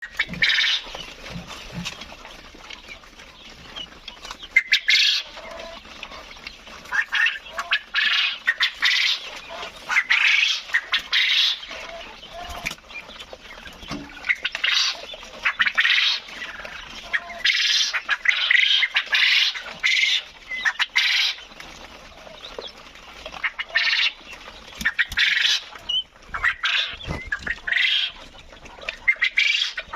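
A flock of quail calling: short, harsh, squawking calls repeated and overlapping throughout, louder bursts every second or two.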